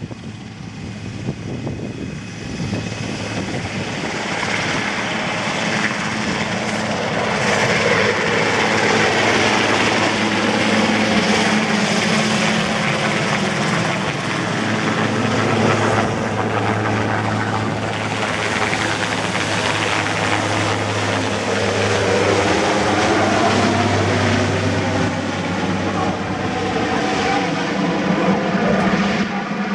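Sikorsky S-61N helicopter, with twin turboshaft engines and a five-blade main rotor, lifting off and flying low overhead. The rotor and turbine noise grows louder over the first several seconds, then stays loud and steady.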